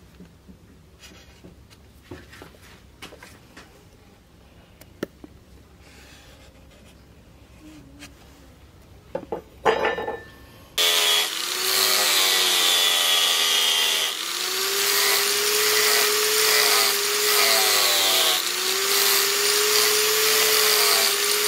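Angle grinder with a sanding disc starting abruptly about halfway through and running loud and steady as it sands a wooden knife-handle blank down to a marked outline; its whine dips twice under load. Before it starts there are only soft handling clicks and a few knocks.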